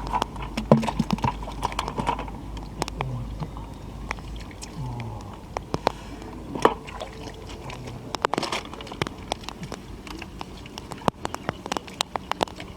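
Water splashing and sloshing in a shallow pond, with many short sharp taps and clicks throughout.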